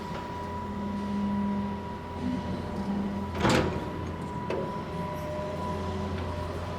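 Compact earthmoving machine's diesel engine running steadily. About halfway through comes a single sharp metal clank, with a lighter knock a second later.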